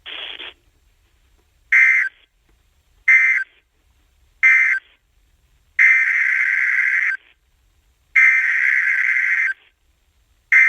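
Emergency Alert System SAME data bursts, a raspy two-tone digital warble, over a weather-radio receiver. Three short end-of-message bursts close the previous alert, then three longer header bursts begin the next alert, each about a second and a half apart.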